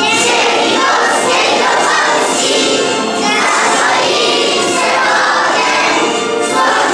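Large children's choir of young schoolchildren singing together.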